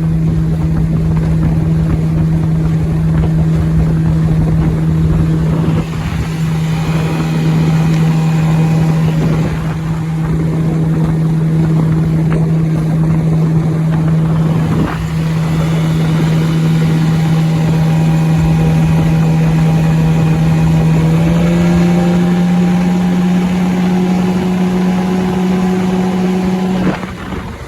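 A 1995 Johnson 25 hp two-stroke outboard motor runs steadily below full throttle, pushing a small boat, over a haze of water and wind noise. The engine note steps up slightly about three-quarters of the way through and drops off near the end.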